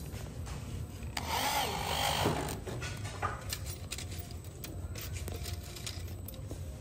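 Handheld electric drill driving a screw into a metal connector fitting set in the edge of an MDF panel, its motor whirring briefly about a second in. Light clicks and knocks follow.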